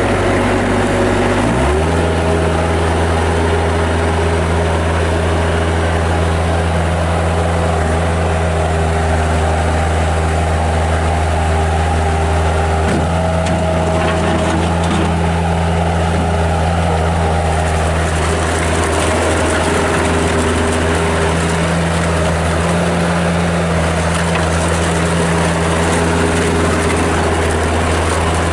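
1997 Bobcat 763 skid steer's Kubota diesel engine running steadily just after being started, its speed rising about two seconds in and then holding.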